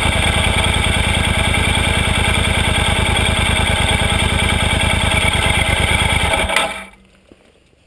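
Yamaha XT1200Z Super Ténéré's 1200 cc parallel-twin engine idling steadily, then switched off about six and a half seconds in, leaving only faint background sound.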